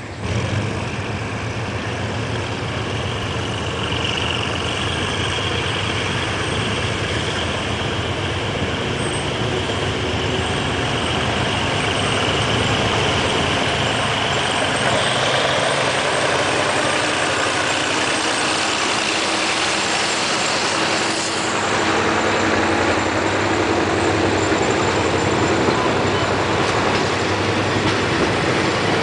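GE diesel-electric locomotive's engine running as it pulls a passenger train away from a station, slowly getting louder as it draws near. The coaches roll past near the end.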